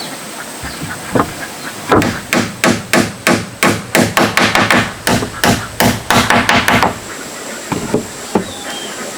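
Hammer nailing into wood: a fast, even run of about twenty blows, roughly four a second, starting about two seconds in and stopping near seven seconds.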